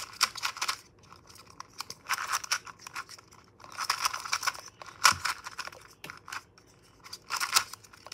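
GAN 2x2 speed cube being turned quickly by hand: rapid runs of plastic clicks as its layers snap round, in about five short bursts with pauses between, and a sharper clack about five seconds in.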